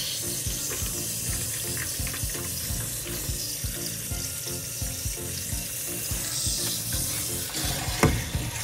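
Water from a handheld shower sprayer running over a kitten in a plastic basin in a stainless steel sink: a steady hiss of spray. There is a single sharp knock about eight seconds in.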